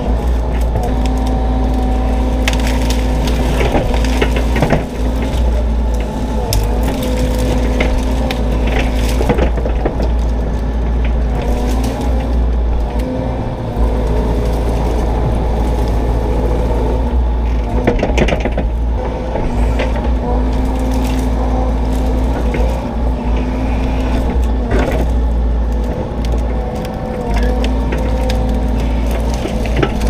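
Bobcat E42 mini excavator's diesel engine running steadily under load, its hydraulics working as the bucket and thumb tear small trees out by the roots. Wood and roots crack and splinter several times over the engine drone.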